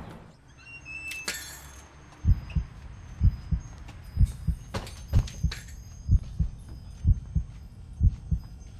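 Heartbeat sound effect: low double thumps (lub-dub) about once a second, starting a couple of seconds in and repeating steadily.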